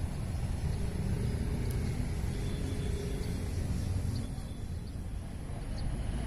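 Outdoor roadside ambience: a steady low rumble of passing vehicle traffic.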